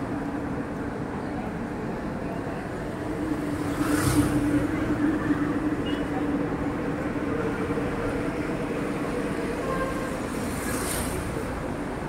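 Busy city street traffic: vehicle engines running steadily, with one vehicle passing close and loudest about four seconds in, and a short hiss near the end.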